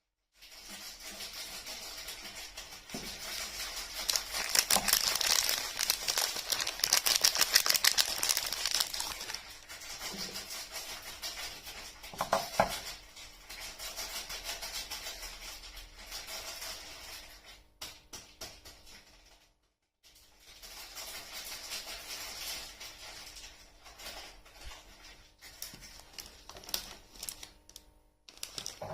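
Packaging crinkling and crackling as it is handled and unwrapped in close-up, a dense run of quick crisp clicks. It breaks off suddenly about two-thirds through and starts again.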